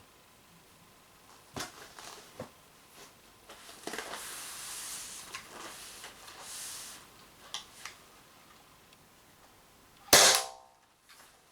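Umarex TPX50 CO2 pistol firing a single shot about ten seconds in: one sharp, loud pop with a short ring after it. Before it come a few faint clicks and a soft rustle of handling.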